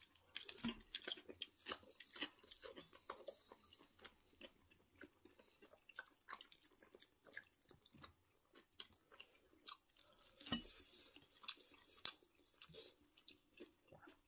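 Faint close-up eating sounds: chewing and crunching of fried food, with scattered light clicks of a metal fork against a plate.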